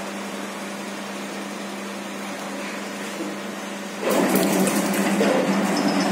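Plano milling machine running with a steady hum. About four seconds in, its T-slot cutter begins cutting into the cast-iron bed and the sound turns louder and rougher, with a scratchy cutting noise.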